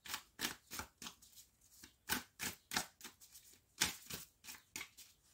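A deck of oracle cards being shuffled by hand: a string of short, soft card slaps and flicks, about two or three a second, with uneven gaps.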